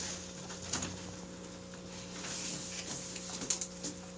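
Knife slitting a cardboard shipping package open: faint scraping and rustling with a few small knocks, over a steady low hum.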